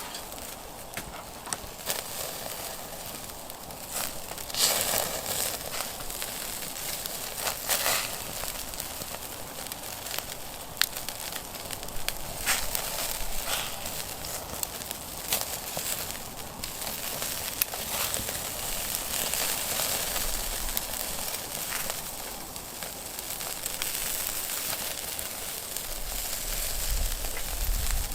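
Firewood burning and crackling, with irregular sharp pops and snaps over a steady hiss, and a low rumble near the end.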